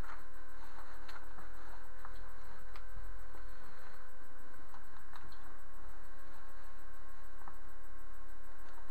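Steady low electrical hum with a few faint, scattered ticks as a garment is pulled on over clothing.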